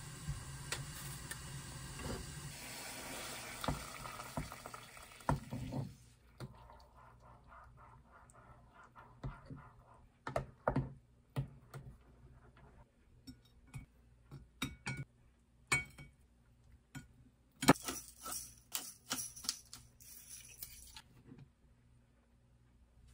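A steady rush of running water for about the first six seconds, then a wooden spoon stirring soup in a ceramic bowl: irregular light knocks and scrapes against the bowl, with one sharper knock near the end.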